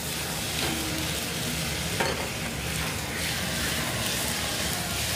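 Lamb rump sizzling steadily in a hot frying pan over a gas burner while it is flambéed, with a faint click about two seconds in.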